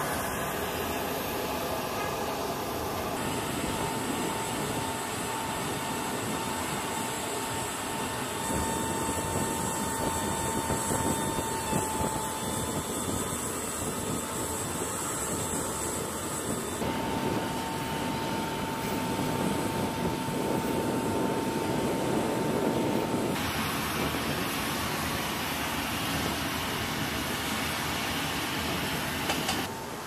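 Loud steady flight-line noise from running aircraft and ground equipment, with a steady high whine through the middle; the noise changes character abruptly several times.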